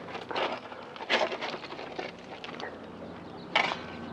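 Metal shovel scraping and digging into stony soil at the bottom of a grave, with loose dirt and gravel pattering. There is a strong scrape about a second in, a sharper stroke near the end, and smaller scrapes between.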